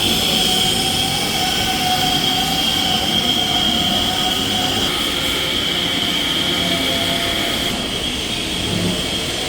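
Large CNC roll turning lathe running, a steady high-pitched whine over continuous machine noise.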